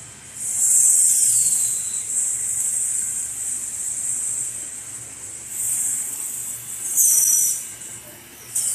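Glass edging line with its automatic glass-turning robot arm: loud bursts of high hissing that start and stop, strongest about a third of a second in, and again near the middle, about seven seconds in, and at the end, with a short whistle falling in pitch after the first burst. A low steady machine hum runs underneath.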